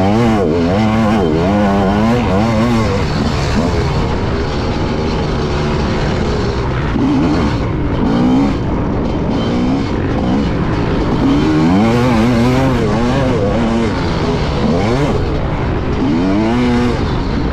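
Motocross dirt bike engine ridden hard, heard from on the bike: the pitch climbs and drops over and over as the rider opens and closes the throttle and shifts, through corners and over jumps.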